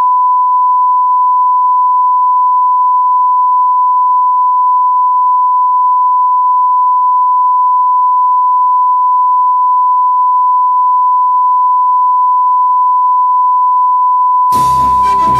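Steady 1 kHz line-up test tone, a single unbroken pure beep of the kind played with broadcast colour bars for setting audio levels. About a second before the end, orchestral music starts over it.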